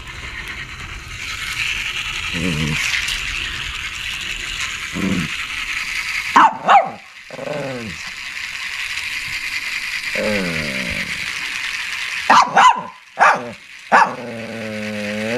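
Shih Tzu whining, with a couple of sharp barks about six seconds in and a quick run of barks from about twelve seconds, then a long whine at the end.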